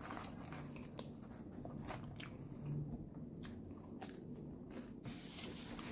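Person chewing food close to the microphone: faint, irregular crunchy clicks of biting and chewing.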